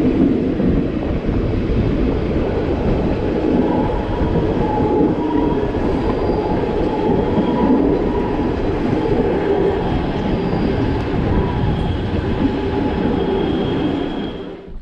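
Le Petit Train Jaune, a metre-gauge electric train, running along the line: a steady rumble of wheels on rail with faint, intermittent high wheel squeals. The noise fades out near the end.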